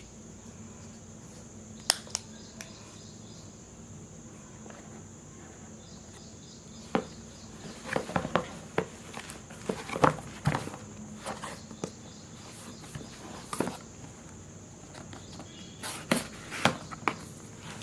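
Headphone box being opened and unpacked by hand: scattered clicks, taps and rustles of cardboard and plastic packaging, busiest in the middle and again near the end.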